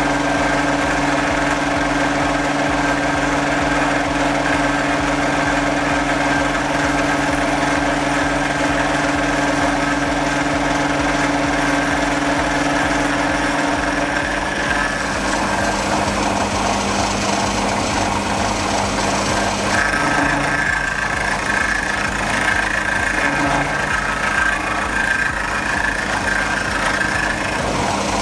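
Milling machine running with its face mill cutting across a metal workpiece, a steady machine hum; about halfway through the hum shifts to a different pitch and a higher steady whine appears.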